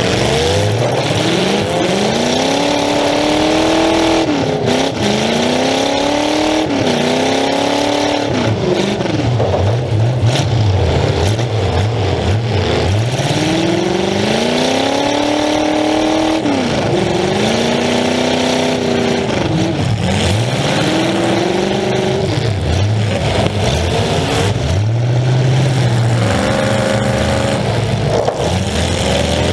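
A demolition derby car's engine, exhausting through short open pipes straight up through the hood, revving up and dropping off over and over, its pitch rising and falling every two to three seconds as the car accelerates and lets off.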